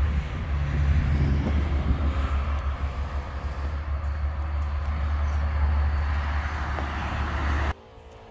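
Steady outdoor rumble and noise with a heavy low end, cut off suddenly near the end.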